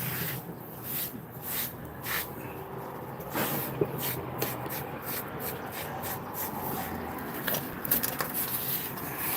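Irregular rubbing and scraping sounds, a string of short scrapes one after another.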